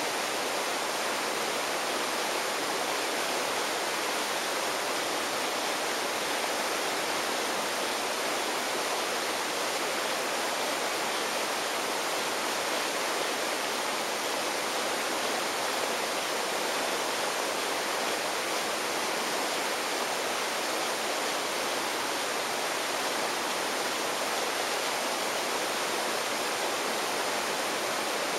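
Steady, even rushing of running water with no breaks or rhythm.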